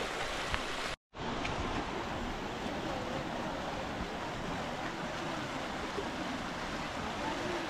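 Azusa River, a fast-flowing mountain river, rushing steadily over stony rapids. The sound cuts out completely for a moment about a second in.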